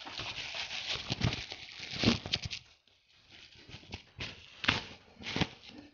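Plastic bubble-wrap packaging crinkling and rustling as a multimeter is pulled out of it by hand. Several sharp handling knocks come in the second half.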